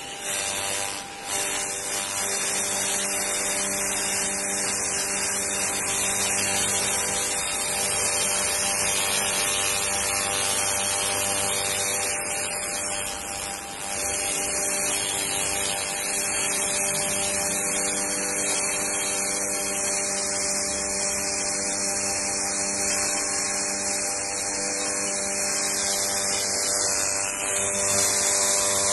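50 W pulsed fiber laser cleaning head ablating paint and grease off a painted engine valve cover: a steady, high hissing crackle, with a steady hum of several tones beneath.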